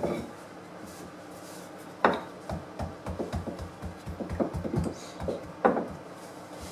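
Wooden rolling pin knocking down and rolling pastry on a floured wooden worktop. Three sharp knocks, near the start, about two seconds in and near the end, with a run of softer, quicker thuds in between.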